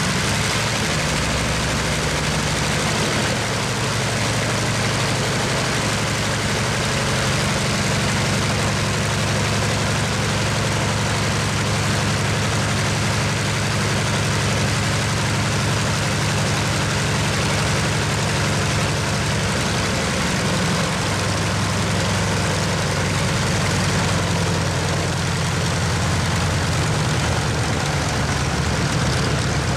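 Mitsubishi A6M5 Zero fighter's Nakajima Sakae 21 fourteen-cylinder radial engine running steadily with its propeller turning. Its note shifts slightly about twenty seconds in.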